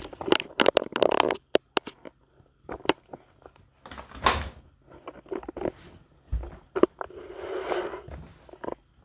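Dishes and dishwasher racks being handled: a rapid run of clicks, clinks and clatters, with a rustling scrape near the end.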